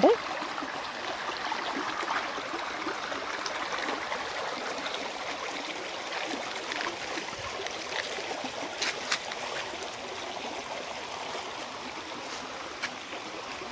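Small forest stream running between rocks, a steady rush of flowing water.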